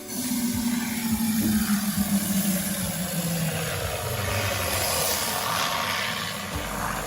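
High-pressure aerosol can of AC cleaning foam discharging through a hose nozzle: a loud, steady hiss that starts suddenly, with a low tone that falls slowly over the first few seconds.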